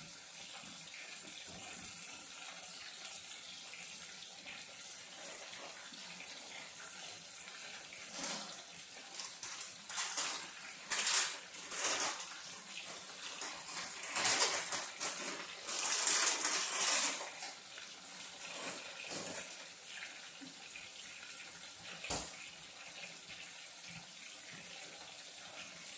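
Shrimp deep-frying in hot oil in a stainless steel pot, a steady sizzle with louder bursts of crackle through the middle. A single sharp knock near the end.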